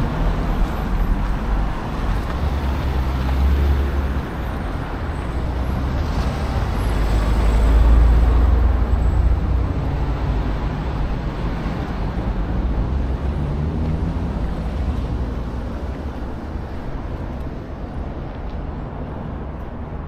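City road traffic: a steady rumble of passing vehicles, swelling as one passes close about eight seconds in, then slowly fading.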